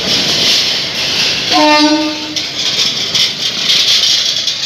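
Covered freight wagons rolling past, with a steady loud hiss and clatter of steel wheels on the rails. About a second and a half in, a train horn sounds once, briefly.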